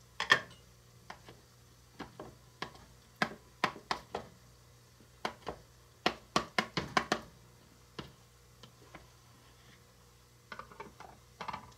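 A knife tapping and scraping against a small plastic bowl as a block of butter is cut into pieces, with a small glass lid being handled: many light, irregular clicks and knocks.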